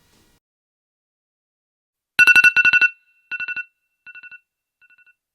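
Electronic beeping on two pitches together: a quick run of about eight rapid beeps about two seconds in, then three shorter groups that fade out like an echo, each quieter than the last.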